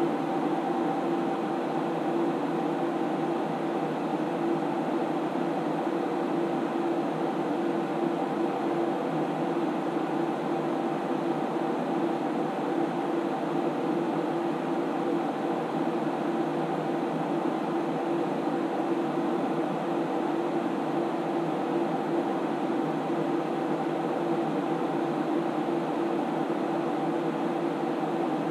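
Cooling fans of an SGI Onyx2 computer running steadily while it renders, a constant whirring rush with a low hum tone in it.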